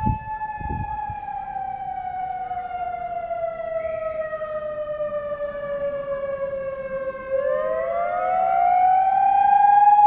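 Whelen WPS 3016 rotating electronic siren sounding a slow wail: its tone slides down for about seven seconds, then glides back up and grows louder near the end as the turning horn array comes round toward the listener. A much fainter second tone runs beneath the main one, the dual tone seemingly faded out over the years.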